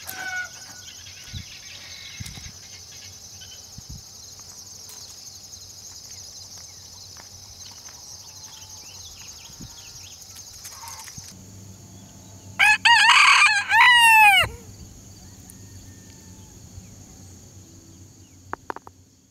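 A rooster crows once, loudly, for about two seconds, roughly two-thirds of the way in. Under it runs a steady high hiss that stops abruptly shortly before the crow.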